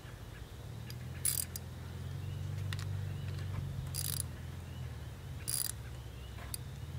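Ratchet wrench clicking in four short bursts about a second and a half apart, over a low steady hum.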